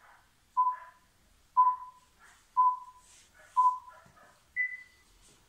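Countdown timer on a laptop beeping about once a second: four short beeps at one pitch, then a higher, longer beep near the end that signals the start.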